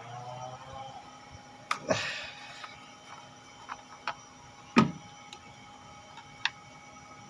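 Scattered sharp clicks and knocks of hand tools and engine parts being handled while the ignition coils are worked loose, with a short scrape about two seconds in and the loudest knock near five seconds.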